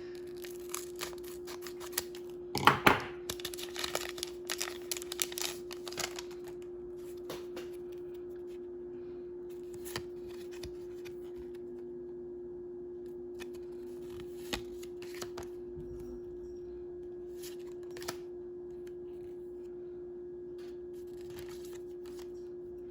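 A small foil trading-card pack being cut and pulled open, with rustling, crinkling and clicks and one loud snap about three seconds in, then the cards handled in scattered light clicks. A steady hum runs underneath throughout.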